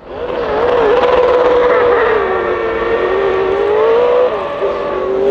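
Sauber Mercedes C9's turbocharged 5.0-litre V8 running at steady raised revs on the start line. The pitch wavers a little, dips briefly about four seconds in, then rises again.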